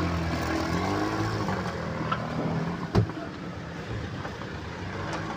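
A motor vehicle's engine running close by, its pitch rising and falling over the first couple of seconds, then a steady traffic background. A single sharp knock about three seconds in.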